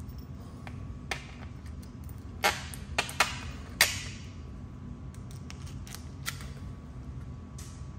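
Sharp clicks and taps as an e-bike skid plate and its mounting hardware are handled and pressed against the bike frame, a few scattered knocks with the loudest about two and a half and four seconds in, over a steady low hum.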